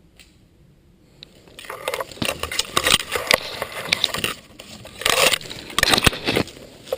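Footsteps crunching through dry leaves and brush, with clothing and gear rustling close to the microphone. They start about a second and a half in and come in irregular loud bursts.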